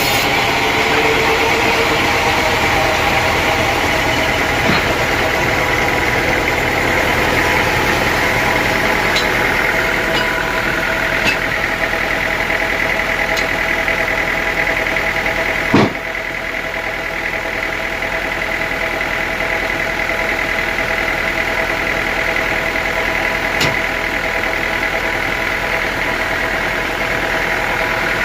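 Sawmill machinery running steadily, with one sharp knock about sixteen seconds in, after which it runs a little quieter.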